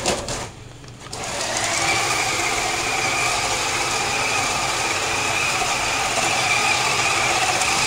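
Small electric drive motor and gearbox of a 1:10-scale RC drift car running, a steady whine that starts about a second in and holds an even pitch.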